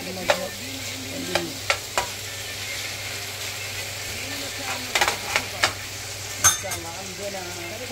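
Sliced onions, red bell peppers and tomatoes sizzling in a frying pan as a metal spoon stirs them, knocking against the pan a dozen or so times, with a quick cluster of knocks about five seconds in.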